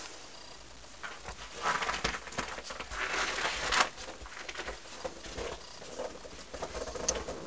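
Irregular crunching and scuffing of snow under a puppy's paws and nose as it digs and steps about, starting about a second in.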